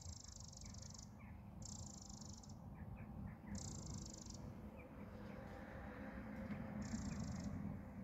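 Four faint, high-pitched buzzy trills, each about a second long, from a small unseen creature, over a low steady rumble.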